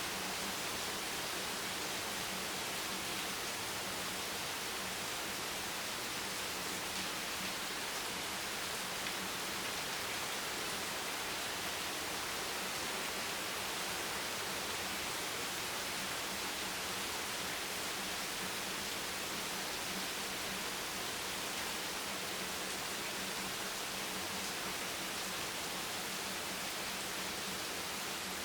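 Hammering rain falling on a beach bench: a dense, steady hiss that does not change, with a faint steady low tone underneath.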